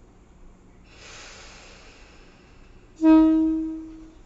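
A Tobu Railway electric commuter train: a soft air hiss for about two seconds, then a short horn blast about three seconds in, one loud steady note that fades away over about a second as the train starts to pull out.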